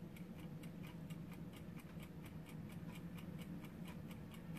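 Mechanical timer ticking quickly and evenly, about four ticks a second, over a low steady hum.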